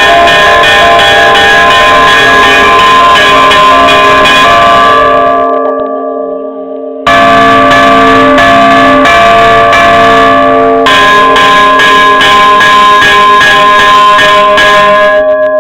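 Church bells ringing the third call to Mass, struck rapidly several times a second. About five seconds in the strikes stop and the ring fades away, then the striking starts again about seven seconds in and carries on loud.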